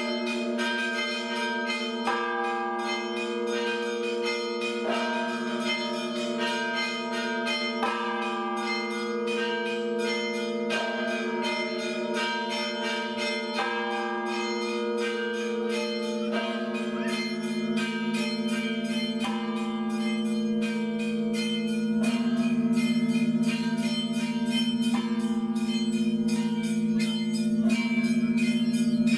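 Church bells ringing: a deep bell struck about every two and a half seconds, its tone hanging on, under fast, continuous strikes of smaller bells. The ringing grows a little louder near the end.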